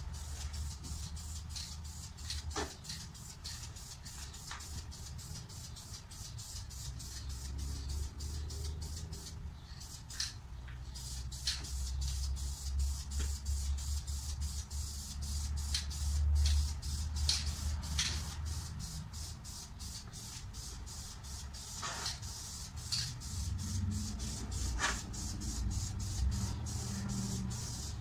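Aerosol spray can of high-heat ceramic engine paint hissing as it is sprayed onto a driveshaft, with a short break about ten seconds in and scattered sharp ticks, over a low rumble.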